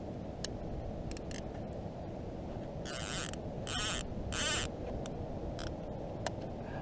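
Fishing reel giving three short raspy buzzes a little before the middle, with a few light clicks of tackle, over a steady low rush of wind and water.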